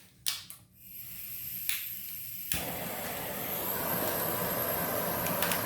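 Handheld gas torch lit to heat a steel bushing. A few clicks come in the first second, then a hiss builds up. After a sharp click about two and a half seconds in, it settles into a steady flame noise.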